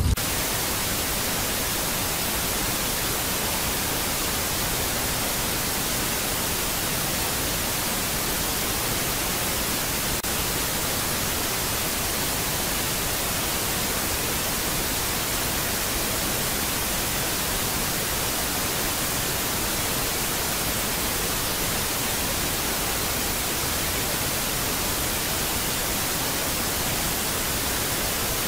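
Steady, even hiss like static or white noise, unchanging in level, that cuts in abruptly.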